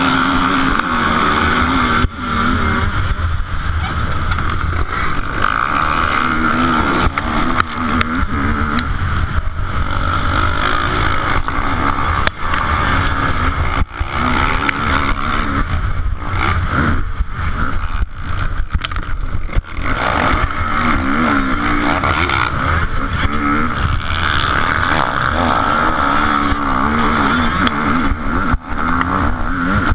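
KTM motocross bike's engine at race pace, its revs climbing and falling again and again as the rider shifts and works the throttle. A few brief drops in the sound come where the throttle is chopped.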